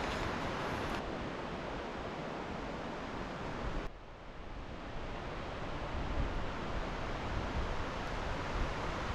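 Steady outdoor rushing noise, even and without distinct strokes, that changes abruptly about a second in and drops quieter about four seconds in before building back.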